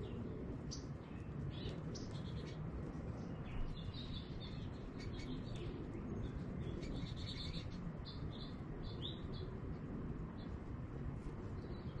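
American goldfinches giving short, high chirps and twitters, scattered throughout and thickest in the middle, over a steady low background rumble.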